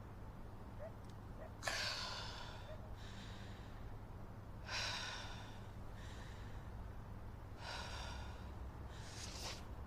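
A person breathing heavily: four loud, hissy breaths roughly every three seconds.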